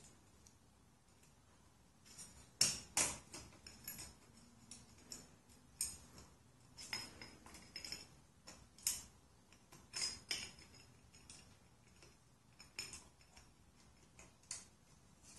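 Faint, irregular metallic clicks and clinks as a lamp harp is squeezed and slid into its saddle around the bulb, starting about two seconds in.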